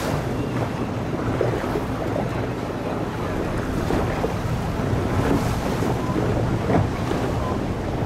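A boat's engine running steadily under way, a low hum under the rush of water and wind buffeting the microphone.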